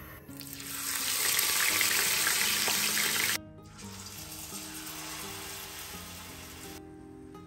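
Hot oil sizzling as battered garland chrysanthemum (shungiku) leaves fry for tempura: loud for about three seconds, then cutting off suddenly and carrying on more quietly. Soft background music plays underneath.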